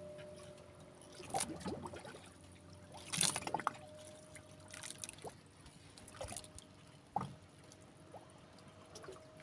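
Water lapping and trickling against the side of a small boat, with a few brief splashes, the loudest about three seconds in. A faint steady hum sits underneath.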